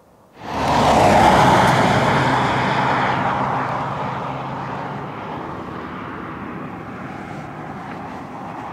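A road vehicle passing close by and then driving away, its engine and tyre noise loudest about a second in and fading slowly over several seconds.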